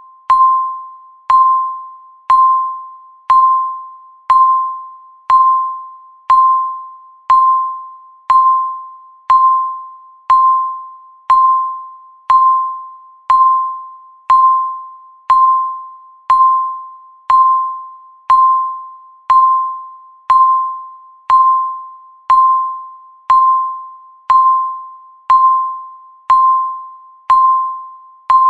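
Countdown timer beeping once a second: a single pitched electronic beep that starts sharply and fades, marking each second left in the count.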